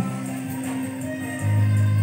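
Background instrumental music; a deep, loud bass note comes in about one and a half seconds in.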